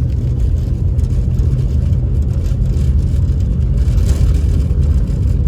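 A pickup truck driving: a steady low engine and road rumble with a constant hum, holding an even speed.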